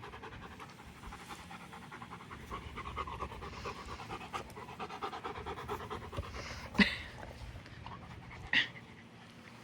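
German Shepherd panting fast and steadily after hard play. Two short, sharp knocks come near the end, the first the loudest sound here.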